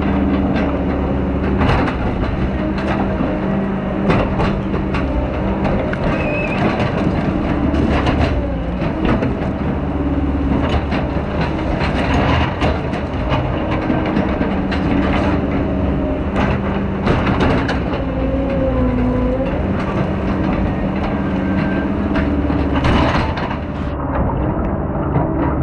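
Diesel engine of heavy logging equipment running and working, its pitch stepping up and down every few seconds, with repeated clanks and knocks.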